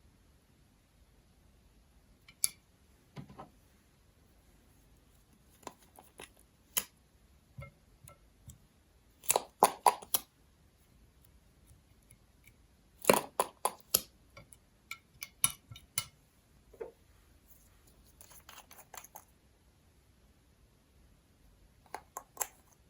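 Hands working slime and makeup: scattered sharp clicks and sticky snaps, singly or in short quick clusters, with quiet stretches between.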